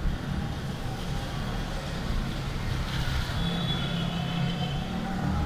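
Street ambience dominated by a motor vehicle's engine running close by as a steady low rumble. In the second half a higher tone rises gently over it, against a faint steady hiss.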